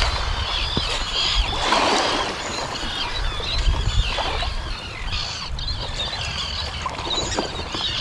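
Seabirds over the water calling over and over, many short, high chirping cries overlapping, above a steady low rumble of wind on the microphone.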